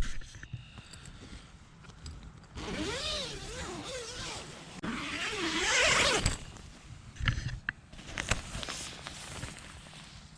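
Tent zipper being pulled open in two long strokes: a rasping buzz whose pitch wavers with the speed of the pull, followed by a few light clicks.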